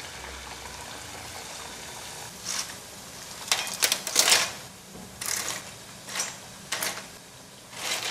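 Rice-flour snack discs sizzling in hot oil for the first couple of seconds, then five or so short bursts of crisp clatter and crackle as the crispy fried discs are tipped from a wire skimmer onto a steel plate and handled.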